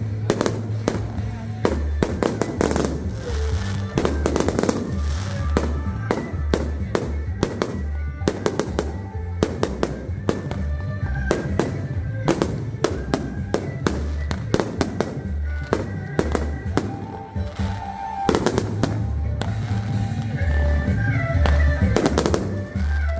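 Fireworks display going off in a rapid, unbroken string of sharp bangs and crackles, several a second, with music playing underneath.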